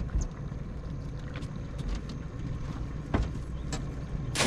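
Small boat's outboard motor idling with a low, steady hum, with a few light knocks. A sudden loud rush of noise comes right at the end.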